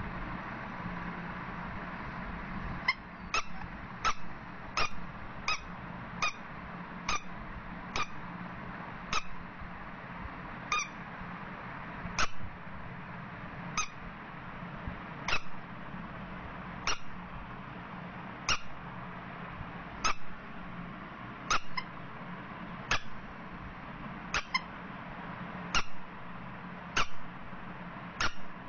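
Yellow rubber squeaky duck toy squeezed again and again: about twenty short, high squeaks, starting about three seconds in, quick at first and then about one every second and a half, over a steady low hum.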